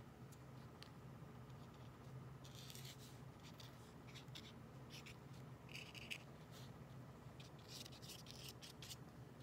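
Faint scratching of a Posca paint marker's tip on acrylic paper, in several short strokes and dabs, over a low steady room hum.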